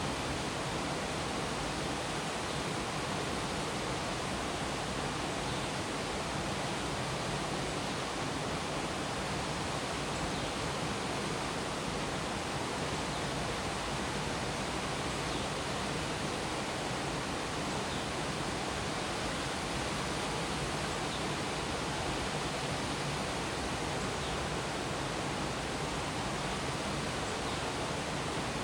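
Minoh Falls, a 33-metre waterfall, pouring steadily: a dense, even rush of falling water with no change in level.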